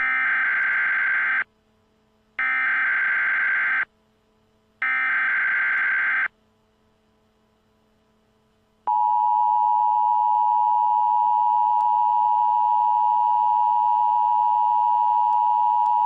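Emergency Alert System tones announcing a severe thunderstorm warning: three bursts of SAME header data, each about a second and a half long with short gaps between, then about nine seconds in the steady two-tone EAS attention signal begins and holds.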